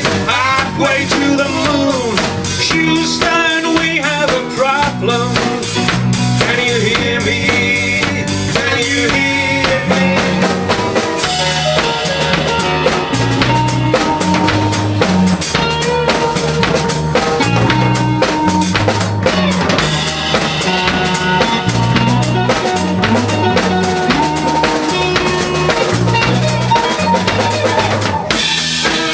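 Live rock trio playing: electric guitar, electric bass and a Ludwig drum kit, the drums carrying a steady kick-and-snare beat under bass notes and guitar.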